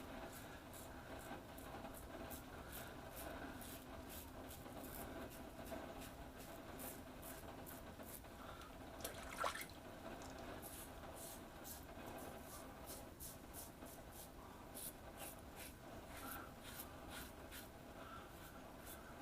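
Safety razor (Rockwell 6S with a Croma Diamant blade) scraping through lathered stubble in short, quick strokes, about two or three a second, faint. A steady rain patter runs underneath.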